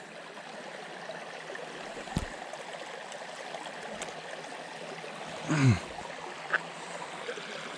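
Steady, even hiss of background noise, with a few faint clicks and a short, falling vocal grunt about five and a half seconds in.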